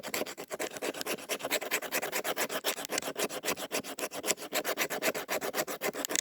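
The 90-degree spine of a fixed-blade knife scraped rapidly and repeatedly along a stick of fatwood, many short strokes a second, raising fine scrapings for fire-starting tinder.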